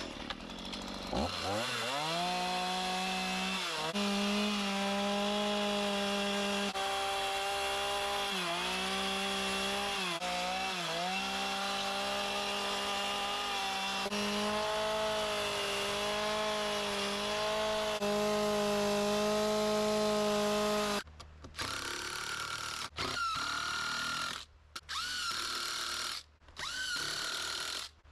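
Chainsaw revving up and running at high speed while carving wood, its pitch dipping briefly several times as the chain bites into the cut. Later it carries on in short pieces that break off and start again abruptly.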